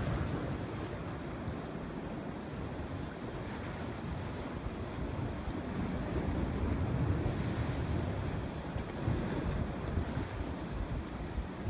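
Wind buffeting the microphone over a steady rush of water, a little louder for a couple of seconds midway.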